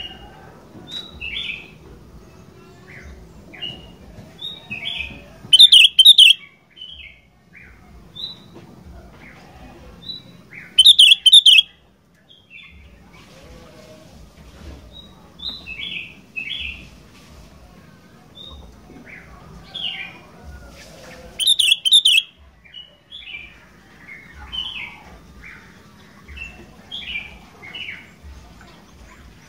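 Sooty-headed bulbul (kutilang) singing steadily in short chirping phrases. Three very loud, rapid phrases stand out, about 6, 11 and 21 seconds in.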